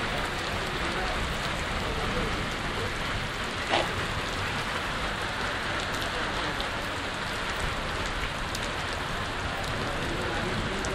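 Heavy rain pouring steadily onto a paved street, a dense even hiss of drops hitting wet ground. A single sharp knock cuts through it a little under four seconds in.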